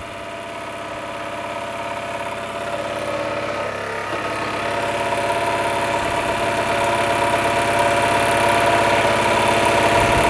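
Mamod ME3 marine model steam engine's single oscillating cylinder running fast on steam, steadily growing louder. It is priming: water is spitting out of the exhaust with the steam, which the owner puts down to too much pressure.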